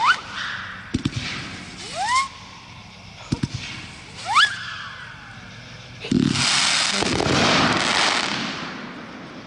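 Planet X 'Galagans' 500-gram firework cake firing its shots: launch thumps, each followed by a rising whistle, three times in the first five seconds. A last shot about six seconds in bursts into a dense crackling hiss that lasts a little over two seconds and fades.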